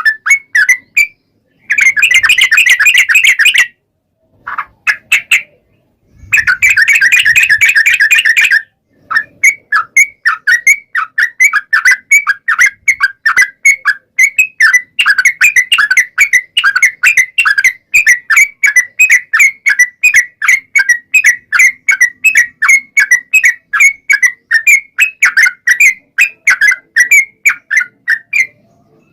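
Yellow-vented bulbul (trucukan) song: two rapid chattering trills, then a long run of short, quick repeated notes, several a second.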